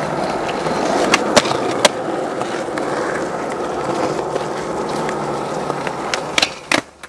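Skateboard wheels rolling over asphalt in a steady rumble, with a few sharp clicks between one and two seconds in. Near the end come two loud clacks as the board hits a flat bar, and the rolling sound ends.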